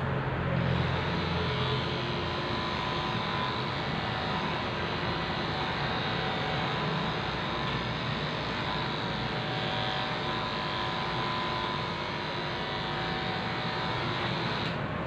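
Corded electric pet clippers running steadily, buzzing as they shave a dog's fur.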